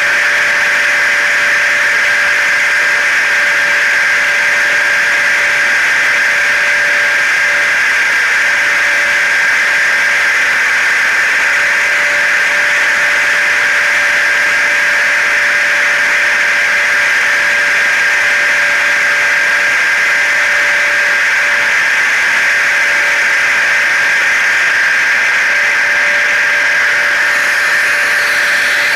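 Hair dryer, car and vacuum cleaner noise layered together as white noise: a steady, unbroken motor whine over a broad hiss.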